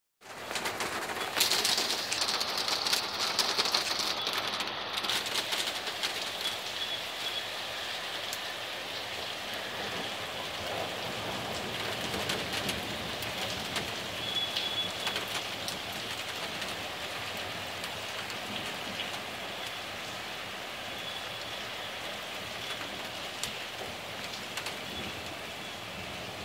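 Heavy rain falling and splashing on surfaces, with many separate drops striking close by. It is heaviest for the first few seconds and then keeps up steadily. A few short bird calls come through it.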